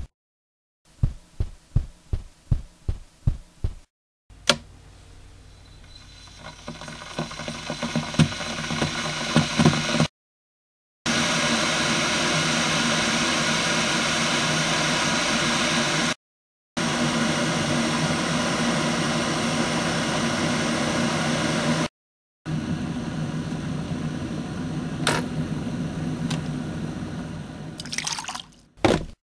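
A run of low thuds, about two or three a second, then a kettle coming to the boil: a hiss and rumble that builds over several seconds into a steady, loud boiling noise, cut off abruptly three times. Near the end, water is poured from the kettle into a cup.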